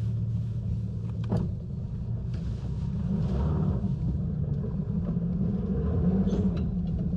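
Yamaha 250 SHO V6 outboard motor on a Skeeter bass boat running at low throttle while powering the boat onto its trailer. A steady low drone that steps up in pitch about a second in, with a single sharp click at the change.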